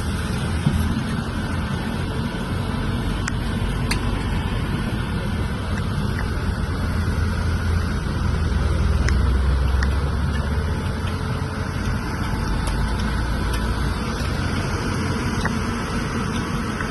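Steady low rumble of vehicle engines, swelling about eight to ten seconds in.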